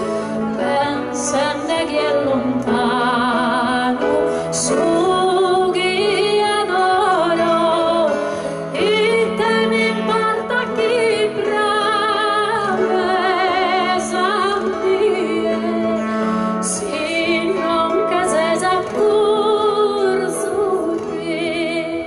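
A live duet of women's voices singing with strong vibrato, accompanied by acoustic guitar and keyboard.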